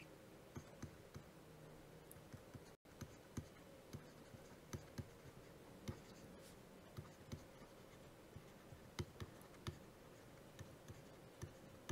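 Faint, irregular taps and clicks of a stylus writing on a pen tablet, about one or two a second, over quiet room tone.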